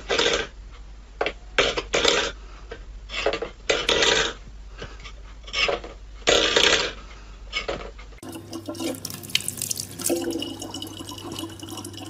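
A series of short, irregular scraping bursts, then, from about eight seconds in, kitchen tap water running in a thin stream into a plastic bottle.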